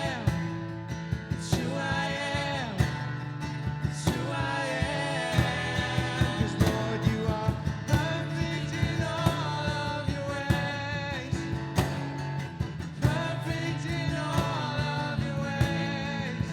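A song with a singing voice over guitar, a steady bass and a regular beat.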